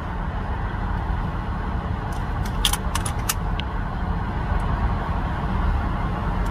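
Steady low rumble of a pickup truck's idling engine, heard from inside the cab, with a few light clicks about two to three seconds in.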